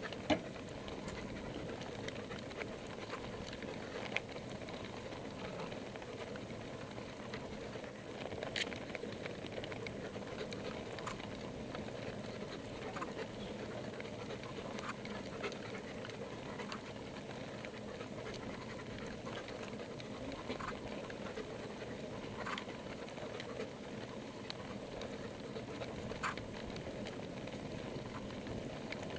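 Bicycle rolling over brick paving: a steady rumble of the tyres on the pavers, broken by a few scattered sharp clicks and rattles.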